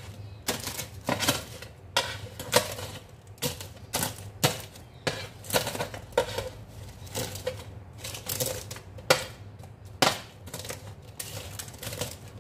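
Metal fork striking and scraping a metal oven tray while breaking up food, giving irregular sharp clicks about once or twice a second.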